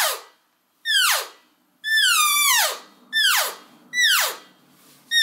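Reel Game Calls Elk Reel, a wooden elk call with a latex reed, blown hands-free in the mouth: a run of cow elk mews, about one a second, each falling steeply in pitch, the third held longer than the rest.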